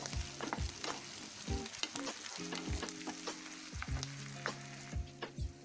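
Onions, curry leaves and ginger-garlic paste sizzling in hot oil as a wooden spatula stirs them, with many short clicks and scrapes of the spatula against the pan. A low steady hum comes and goes beneath it.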